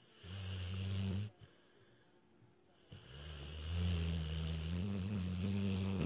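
Dog snoring: two long, low, drawn-out snores, the first about a second long and the second about three seconds.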